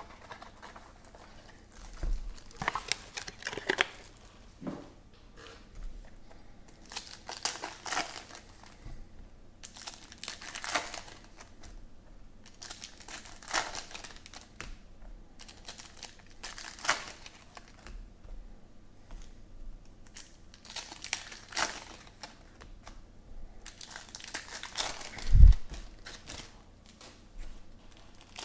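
Plastic trading-card pack wrappers being torn open and crinkled by hand, in short rustling bursts every few seconds. Near the end there is a single dull thump, the loudest sound.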